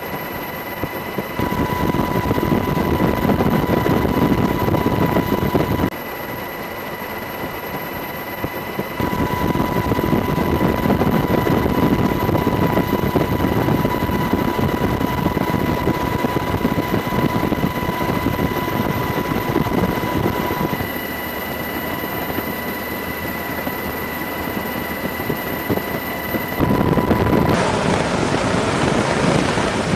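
Steady rumbling engine and rushing air noise with a thin high whine, changing in level at several points. Near the end it turns to the louder, brighter rush of a jet engine running at high power on a carrier flight deck before a catapult launch.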